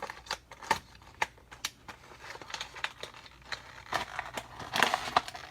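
A Hot Wheels blister pack being torn open by hand. The plastic bubble and card give irregular crackles and snaps, with a denser run of crackling near the end.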